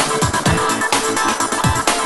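Electronic dance music with a steady beat of deep kick drums.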